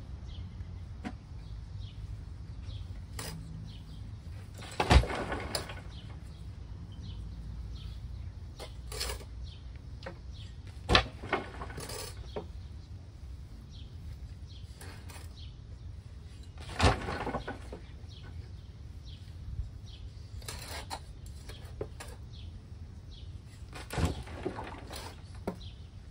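Shovelfuls of earth landing in a grave onto the casket: four loud thuds about six seconds apart, with fainter knocks between them.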